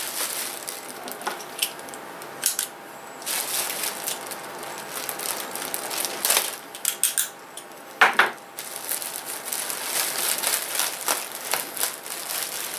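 Clear plastic packaging crinkling and rustling in irregular bursts as it is worked open and pulled off a plush toy, with a sharp, loud crackle about eight seconds in.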